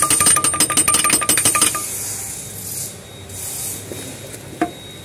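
Rapid run of metallic clicks with a ringing tone, a hand tool working against metal, stopping abruptly a little under two seconds in. After that, faint workshop noise and a single light click near the end.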